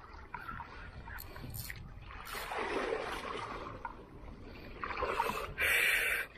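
Seawater splashing against a small boat, in a few hissing bursts. The loudest and shortest comes near the end.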